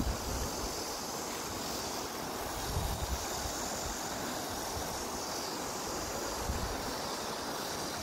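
Steady rush of a shallow mountain stream running over rocks, with wind gusting on the microphone now and then, most strongly about three seconds in and again near six and a half seconds.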